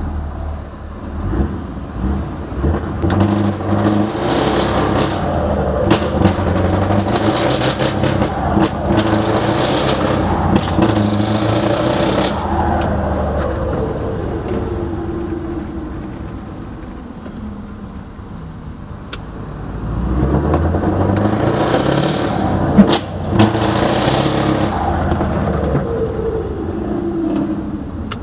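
Tuned Scania V8 truck engine with a big turbo and heavily modified exhaust, heard from inside the cab as it pulls hard twice. The pitch climbs, eases off, then climbs steeply again, with a hiss over the top while under load. One sharp knock comes near the top of the second pull.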